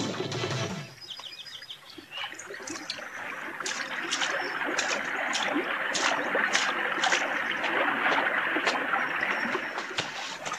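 Shallow river water running steadily over rocks, with birds chirping briefly and often.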